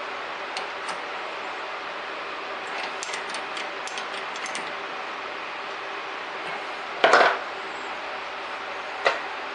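Drill press running steadily while a twist drill bores into a metal bar, with light ticking of chips about three to four and a half seconds in. A loud short clank about seven seconds in and a smaller knock near the end.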